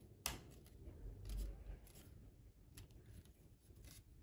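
Gorilla-pod tripod's plastic ball-jointed legs being bent open by hand, the joints giving a few faint clicks ('tak'), the sharpest about a quarter second in.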